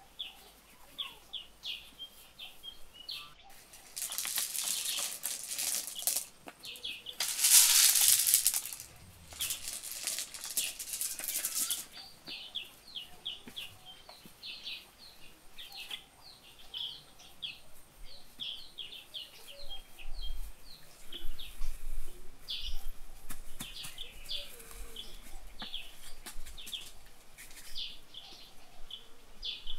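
Small birds chirping in short, repeated calls throughout. Three stretches of loud rustling hiss come between about four and twelve seconds in, the loudest around eight seconds.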